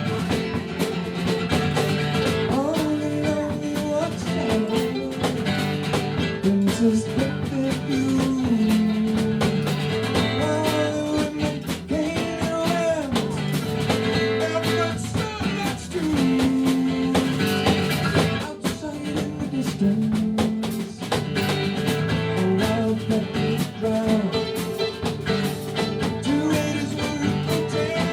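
Live rock band playing an instrumental passage: electric lead guitar playing a melody with bent notes over bass and a steady drum kit beat.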